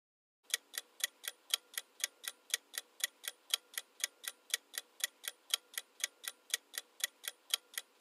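Ticking clock sound effect: even, sharp ticks about four a second, starting about half a second in.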